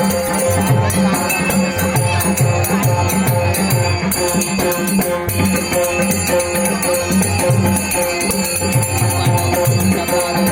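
Devotional folk music for a Ganesh stavan: a hand drum plays quick repeated strokes whose deep notes bend down in pitch, under a steady held drone, with jingling tambourine-like percussion.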